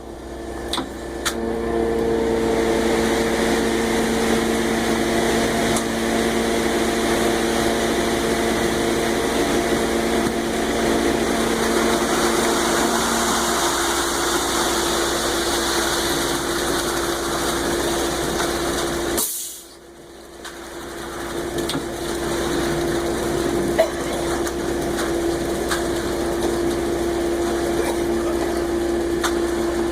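Concrete mixer truck's engine running steadily with a constant hum, dropping away suddenly about two-thirds of the way through and then picking up again.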